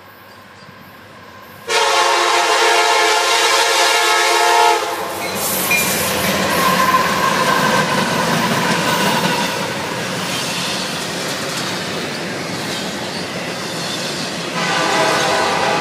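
A CSX diesel freight locomotive's air horn sounds a loud blast of about three seconds as the train closes in. Then the locomotives pass at speed, followed by the steady rumble and wheel clatter of double-stack container cars. A horn sounds again near the end.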